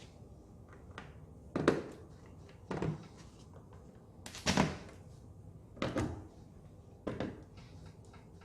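Five separate knocks, a second or so apart, from car parts and tools being handled and fitted; the first and third are the loudest.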